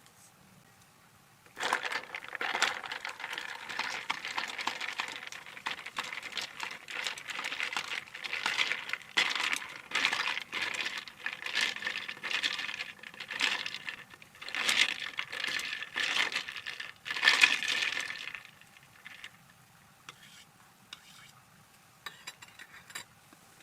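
Handling noises: crinkling and rustling mixed with light clicks and clinks, in an irregular run of about seventeen seconds that starts suddenly a couple of seconds in and stops before the end.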